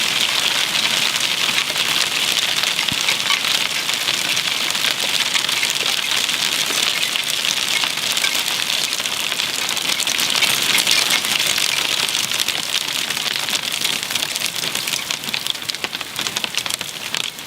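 Hailstorm: hailstones and rain pelting down in a dense, steady clatter of small impacts, thinning to sparser, more separate hits near the end.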